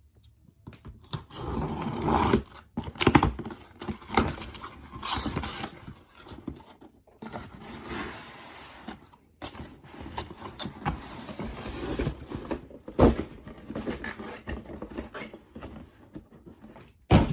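A shoebox and its packaging being opened and handled: irregular rustling and scraping with occasional sharp knocks.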